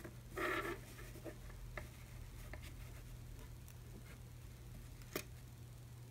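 Fabric rustling briefly as it is handled on a desk, then a few light taps and one sharp click a little after five seconds in.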